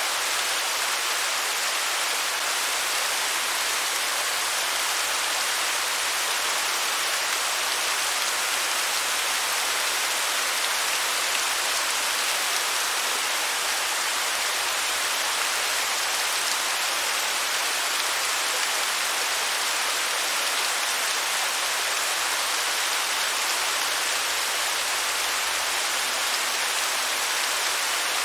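Waterfall: a steady, unbroken rush of falling water, mostly a bright hiss with little low rumble.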